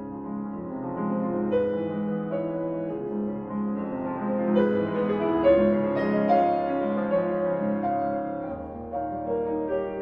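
Background instrumental music, a melody of held notes over lower chords.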